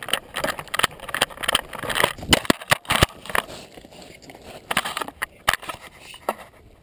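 Handling noise on a vest-mounted GoPro: irregular scrapes, rustles and knocks of gear rubbing and bumping against the camera as the wearer moves.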